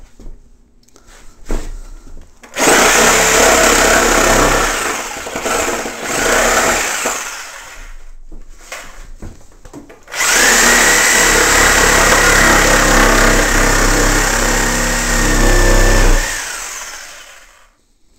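Power saw cutting 3/4-inch plywood in two long passes, a few seconds apart, with the motor winding down after the second cut.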